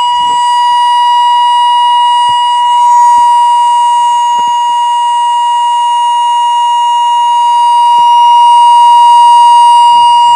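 A Hackintosh computer's audio output stuck on one loud, unbroken, high-pitched electronic tone like a continuous alarm beep. This is the system's sound hanging after a kernel panic.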